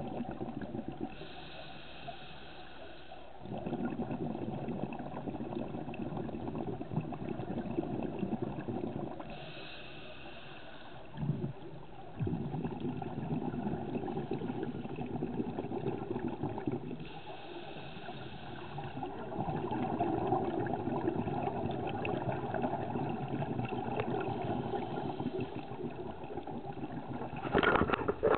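Underwater noise from a camera held in the water: a steady low rumbling and churning, broken about every eight seconds by a short hiss lasting about two seconds. Near the end a sharp splash as the camera comes up out of the water.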